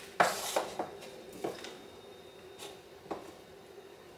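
Plastic filament spool and spool holder knocking and clattering as they are handled and fitted together: a quick cluster of knocks in the first second, then a few single knocks, over a steady faint hum.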